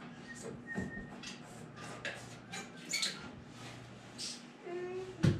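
Handling noises as electrical cable is worked along wooden wall studs: scattered light clicks, rustles and brief squeaks of the cable rubbing, with a sharp knock near the end.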